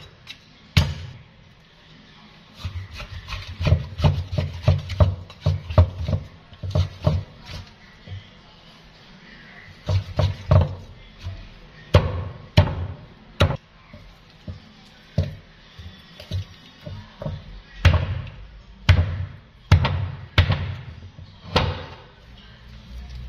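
Cleaver chopping raw pork leg on a thick round wooden chopping block: repeated dull knocks of the blade into the wood, in quick runs through the first half and as single heavier blows after that.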